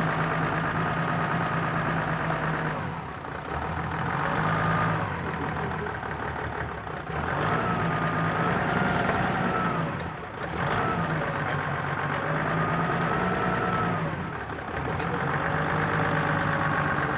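4x4 vehicle's engine running under load, its pitch rising and falling in surges and dropping back briefly every few seconds.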